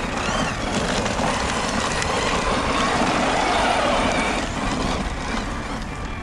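6S brushless RC truck running over loose dirt: an electric motor whine gliding up and down in pitch over the hiss of tyres scrabbling on the dirt. It is loudest about three to four seconds in.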